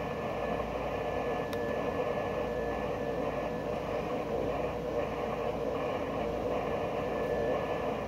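Steady background hiss and hum with no clear source, plus a faint high steady tone in the first half and a single faint click about a second and a half in.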